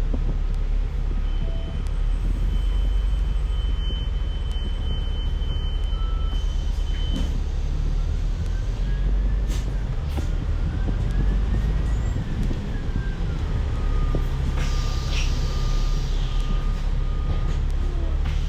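Bus in motion heard from on board: a steady low engine and road rumble, with a whine that rises and falls in pitch in the middle and then holds level.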